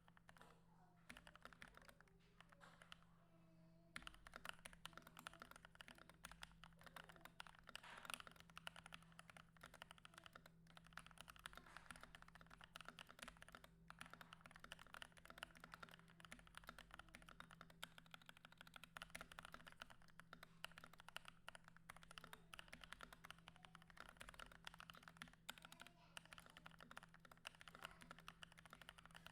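Typing on an NK65 Watermelon mechanical keyboard: a rapid, continuous stream of keystroke clicks, with only scattered keypresses for the first four seconds or so. A steady low hum lies underneath.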